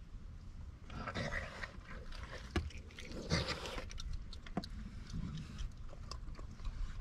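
Raccoons eating peanuts and cookies: scattered crunching and sharp clicks, with two louder rustling stretches, about a second in and about three and a half seconds in, as a raccoon's fur brushes against the microphone.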